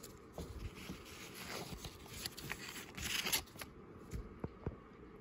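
Faint rustling of a mesh basketball jersey and its cardboard hang tag being handled, with a few light ticks and a slightly louder rustle about three seconds in.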